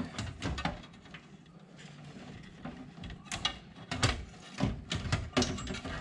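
Irregular clicks, light knocks and rustling of hands handling cables and a sheet-metal drive cradle inside a desktop PC case, with several sharper knocks in the second half.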